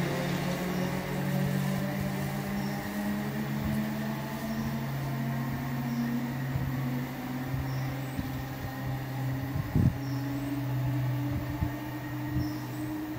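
Electric multiple unit pulling away from the platform: a steady electric hum, its higher tones rising gently in pitch as the train accelerates off. A single knock about ten seconds in.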